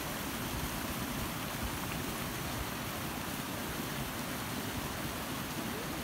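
Steady rush of a waterfall's white water tumbling down over rock terraces.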